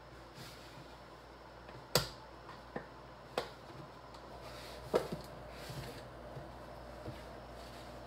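A few sharp clicks and knocks, about four spread over several seconds with smaller taps between, as a jar of Parmesan cheese with a plastic lid is handled on a kitchen counter.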